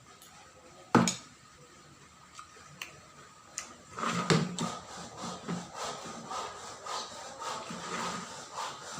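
A sharp click about a second in, then, from about four seconds, an irregular run of rubbing, crackling chewing and tearing sounds as a person eats Thai spiced beef shank, a piece still not quite tender.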